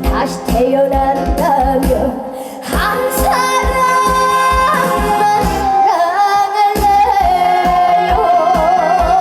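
A young girl singing a trot song live over a backing track with a steady beat; in the second half she holds one long note with a wavering vibrato.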